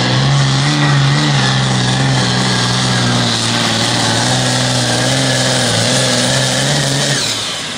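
A modified John Deere 5010 Pro Farm pulling tractor's turbocharged diesel engine running hard and steady under load while pulling the sled. About seven seconds in the engine note drops away and the level falls as the throttle comes off at the end of the pull, with a high whine falling in pitch.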